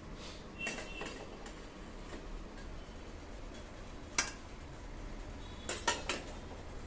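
Metal spatula clinking against the perforated stainless steel plate of a steamer as steamed kanole are lifted off: a few light taps, one sharper clink about four seconds in and a quick run of three near the end.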